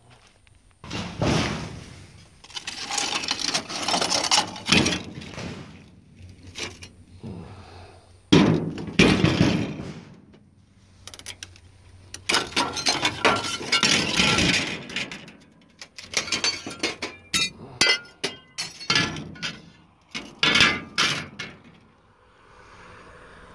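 Footsteps crunching through burned fire debris and broken glass, in irregular bursts of crunching with sharp clinks and clicks, busiest a little past the middle.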